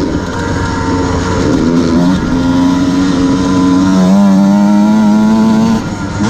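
Dirt bike engine heard from on the bike while riding: its pitch climbs, drops at an upshift about four seconds in and pulls on steadily, then falls as the throttle closes near the end.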